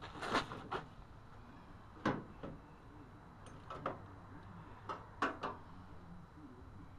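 A plastic headlight and turn signal assembly knocking and clicking against the fender and mounts as it is worked into place: a string of short sharp clicks and knocks in small clusters.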